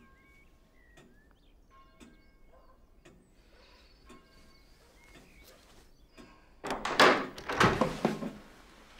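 Faint ticking about once a second, then a loud clatter of knocks and rattling that starts about seven seconds in and lasts around two seconds.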